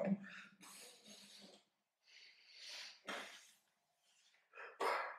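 A man's breath: a handful of short, sharp puffs and exhalations, the loudest about three seconds in, with quiet gaps between.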